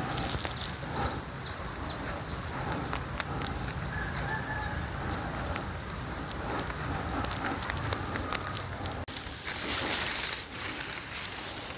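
Rural field ambience: small birds chirping in short calls over a steady low rumble, with a few longer bird or fowl calls in the middle. From about nine seconds in, louder brushing and rustling noises take over.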